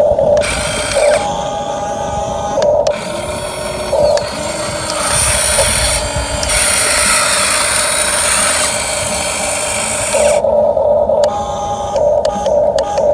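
Huina 1550 RC excavator's small electric motors and gearboxes whining in short spurts as its arm and bucket move, with several brief rising and falling motor tones.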